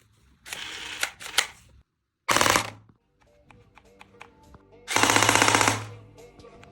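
Electric M416 toy gun firing two short full-auto bursts, a fast rattle about two and a half seconds in and again, slightly longer, about five seconds in, after a stretch of clicking. Background music comes in between the bursts.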